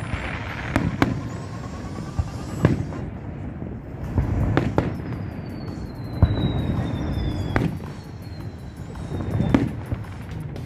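Fireworks going off: about seven sharp bangs at irregular intervals of one to two seconds, with a long, slowly falling high whistle partway through, over a steady low rumble.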